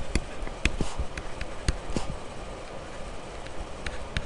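Pen stylus tapping and clicking on a tablet screen while writing by hand: a dozen or so light, irregular clicks over a faint steady hiss.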